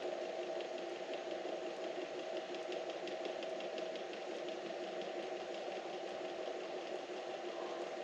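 A steady mechanical hum, two steady tones over a hiss, with faint rapid ticking in the middle.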